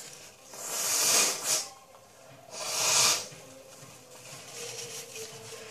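A person blowing their nose, two long blows about two seconds apart.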